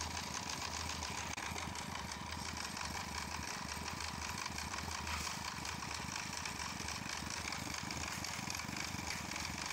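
Portable concrete mixer's small engine running steadily at a constant speed, with a fast, even beat.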